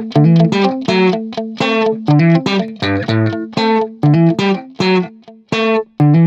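Background music: short plucked notes in a steady rhythm, about three a second, over a held low note.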